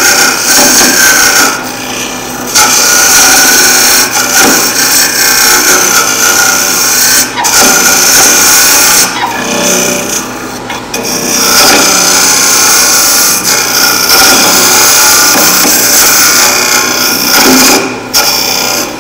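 Gamma Zinken termite hollowing tool cutting end grain inside a wooden vase spinning on a wood lathe: a loud, steady scraping hiss as shavings are thrown out. The cut drops off briefly about three times.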